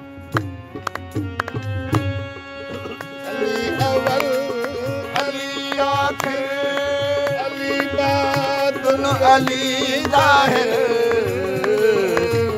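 Harmonium playing a melody over a steady beat on a hand drum, an instrumental passage between sung verses of a devotional manqabat. The music grows fuller and louder about three seconds in.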